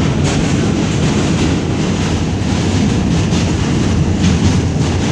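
New York City Subway G train running over a steel truss bridge, heard from inside the car: a loud, steady rumble of wheels on rails with faint clicks from the track.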